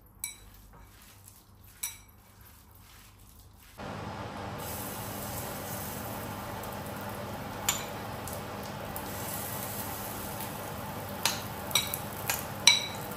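Hands squishing pakora batter of grated pumpkin and gram flour in a bowl, with two light clinks. About four seconds in, a steady sizzle starts as spoonfuls of batter fry in shallow oil in a pan. A metal spoon clinks against the bowl several times, loudest near the end.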